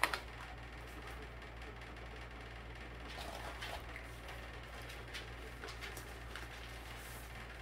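Faint rustling and crinkling of packaging as a book is pulled out of its wrapping, with a sharp click at the start and a few light ticks, over a steady low hum.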